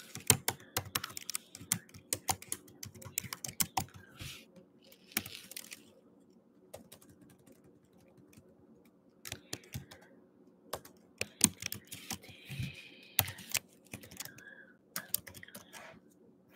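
Typing on a computer keyboard: irregular runs of key clicks, busy for the first few seconds, a pause of a few seconds, then more typing.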